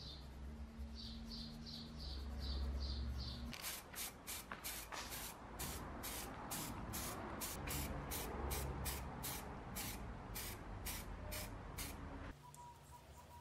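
Aerosol spray paint can hissing in a fast run of short bursts as black paint goes onto a wrench handle, starting a few seconds in and cutting off suddenly near the end. Before it, a quieter stretch of a paintbrush working a liquid onto the metal.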